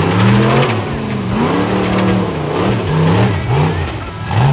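Rock bouncer's engine revving up and down over and over, about six quick revs in a row as the throttle is blipped.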